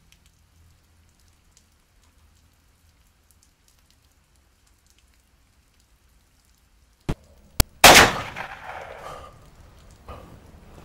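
Faint low hum, then a thunderclap: two sharp cracks about seven seconds in, followed by a very loud crash that rumbles away over a couple of seconds, with rain hissing after it.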